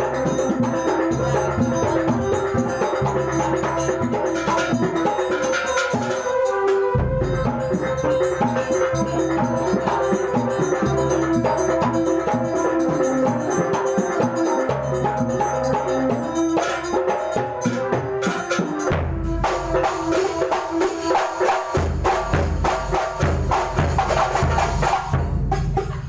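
Kuntulan music: a percussion ensemble of drums and ringing pitched percussion playing a dense, driving rhythm, stopping right at the end.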